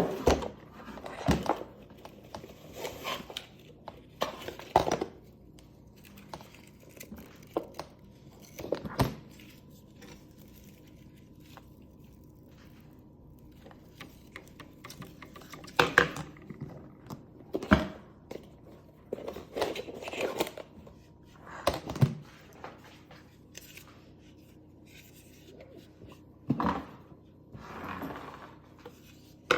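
Packaging being handled and opened: scattered rustling and tearing, with short knocks and clicks at irregular moments and quieter gaps between.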